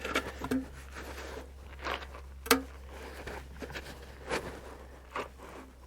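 Close-up handling noises: scattered soft knocks and rustles, with one sharper knock about two and a half seconds in, over a low steady hum.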